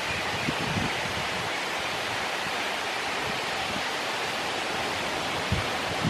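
Steady outdoor background hiss with a few faint low thuds; no distinct bird calls or pecking stand out.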